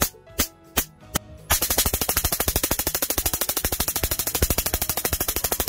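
High-voltage spark igniter for a homemade jet engine snapping in a vice. Until about one and a half seconds in it fires slowly from the old igniter box, about two to three sharp snaps a second. Then it fires from the new fast-firing igniter box in a rapid, even stream of snaps that sounds like a machine gun.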